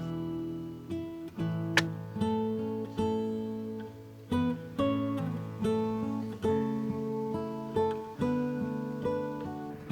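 Background music: an acoustic guitar plucking and strumming chords in a slow, gentle rhythm.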